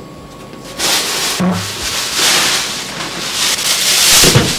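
Plastic bags rustling and crinkling as they are handled, irregular and loudest near the end, with a soft thud about a second and a half in.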